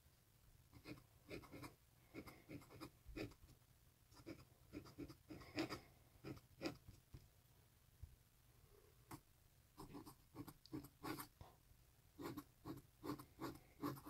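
Pointed metal dip-pen nib scratching faintly across paper in short strokes as calligraphy letters are written out, with a pause of about two seconds midway before the strokes resume.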